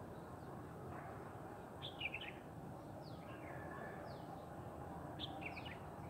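Small birds chirping now and then over faint outdoor background noise: a few short, high chirps, several times.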